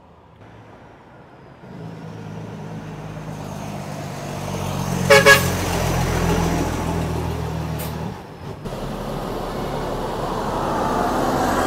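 Heavy truck's diesel engine growing louder as it comes closer, with two quick horn toots about five seconds in. The engine note dips briefly about eight seconds in, then builds again.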